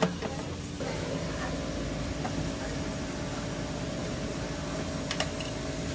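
A steady machine hum with two even tones comes in about a second in. Metal tongs click against wire cooling racks at the start and again about five seconds in.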